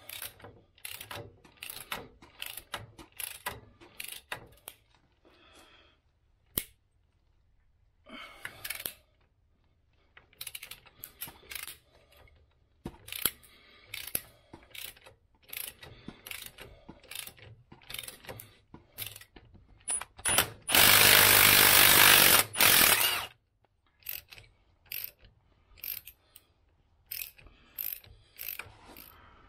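Long ratchet clicking in runs of quick strokes as 13 mm 12-point bolts on the steering knuckle are worked loose. About two-thirds of the way in, a loud burst of noise lasts about two seconds.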